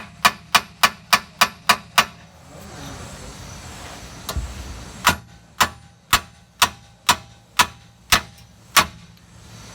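Hammer blows on the end of a stubborn, never-before-removed suspension bolt, struck through a nut threaded onto it to protect the threads, to drive the bolt out. About eight sharp metallic strikes come in quick succession, then after a pause and a dull thump come about eight slower strikes, roughly two a second.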